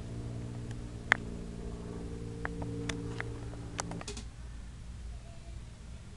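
A steady low hum with a few sharp scattered clicks, one louder click about a second in. The hum cuts off about four seconds in.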